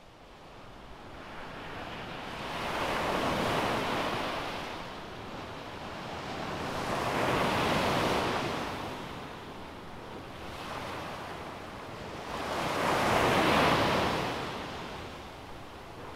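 Sea waves washing in, swelling and ebbing three times.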